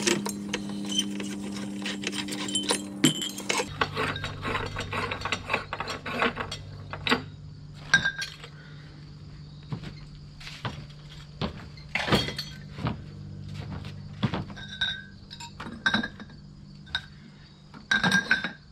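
Repeated light clinks and knocks of construction debris being handled and moved, some with a short glassy or metallic ring, over a steady low hum that drops in pitch about four seconds in.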